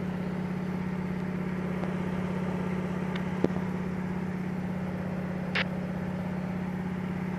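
DHC-2 Beaver floatplane's engine and propeller droning steadily in flight, with an even, regular pulse. A single brief click comes about three and a half seconds in, and a short hiss about two seconds later.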